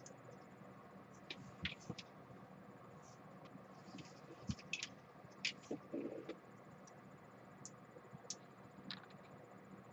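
Hands handling a charging cable and plastic cable clips: faint, irregular clicks, taps and rustles, with a small knock about four and a half seconds in.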